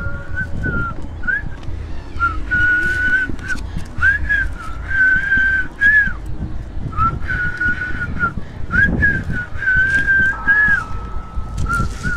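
A person whistling a slow tune of long held notes, each bending in pitch at its start and end.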